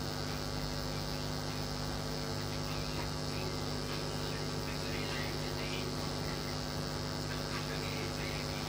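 Steady electrical mains hum, with only faint, light scrapes and taps from a wooden rolling pin rolling dough on a marble board.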